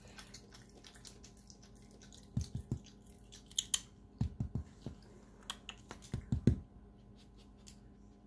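A cat retching up a hairball: three bouts of three or four low heaves, about two seconds apart, the last bout the loudest. Between the bouts come light clicks and crunches from a raccoon eating almonds.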